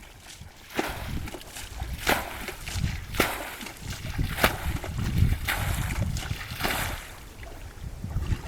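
Water sloshing and splashing in repeated strokes, about one a second, over a low rumble of wind on the microphone.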